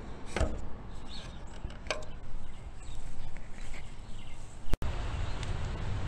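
Trane XL1200 central air condenser running, a steady whir of its fan and compressor, with two short sharp knocks in the first two seconds. About three-quarters of the way through it cuts off suddenly to a Toshiba 5,000 BTU window air conditioner running, a steadier, louder low hum.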